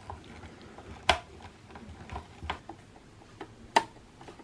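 Screwdriver and screws clicking against a plastic modem case as its screws are taken out: two sharp clicks, about a second in and near the end, with smaller ticks and knocks between.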